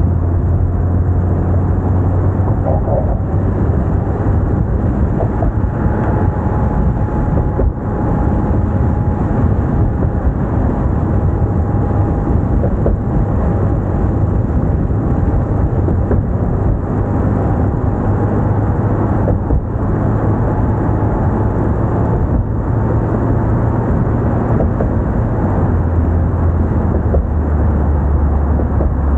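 Car driving at speed: steady road and wind rumble with a low drone from the tyres and engine.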